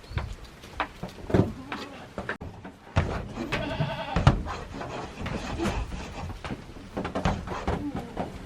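Goat bleating: one long, wavering bleat about three and a half seconds in, with scattered knocks and thumps around it.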